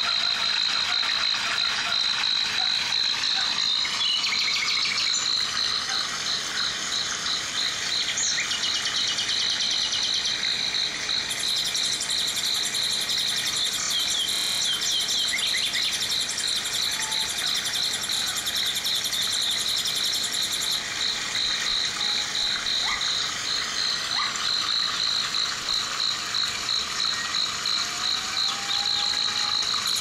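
Forest ambience: an insect trilling steadily in a fast, even pulse, with scattered short chirps over a soft hiss.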